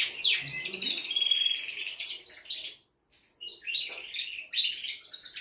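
Male canary singing: rapid falling notes, then a fast trill, a brief pause about three seconds in, and the song starting again.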